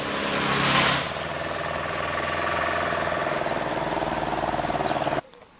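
A small engine running steadily, with a louder rushing noise in the first second. It cuts off abruptly about five seconds in.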